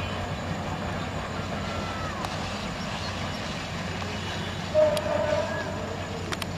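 Train running on the rails, a steady rumble and hiss, with a brief louder high tone about five seconds in and a few sharp clicks near the end.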